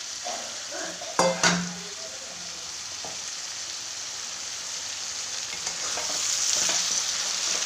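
Potatoes and tomatoes frying and sizzling in a kadai as liquid is poured in from a steel bowl, then stirred with a steel spatula. A couple of sharp knocks come about a second in, and the sizzle grows louder toward the end.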